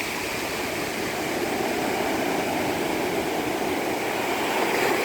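Ocean waves breaking and washing in, a continuous rushing surf that swells to its loudest near the end.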